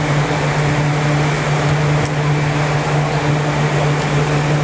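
Steady hum and air rush of the blower fans that keep an air-supported sports dome inflated, with a constant low drone.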